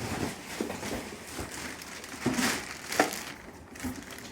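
Packaging rustling and crinkling as the vacuum cleaner's main body is handled during unboxing, with irregular crackles, a louder rustle about two and a half seconds in and a sharp knock just after.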